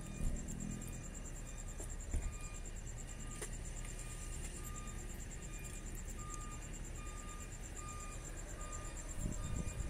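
A vehicle's reversing alarm beeping over and over, about three beeps every two seconds, against a fast, high, steady insect trill and a low traffic rumble. There is a low thump near the start and another about two seconds in.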